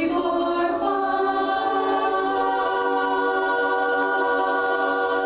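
Barbershop chorus singing an a cappella warm-up: the voices step up the scale in the first second, then hold one steady four-part chord, each part on its assigned note of the scale.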